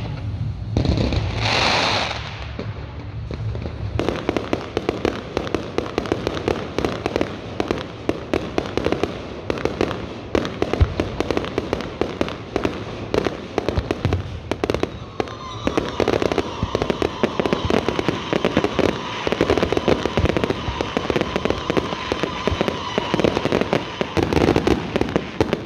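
Fireworks display: a hissing whoosh about two seconds in, then dense, continuous crackling and popping of fireworks bursting. A steady high tone sounds along with the crackling from about halfway through.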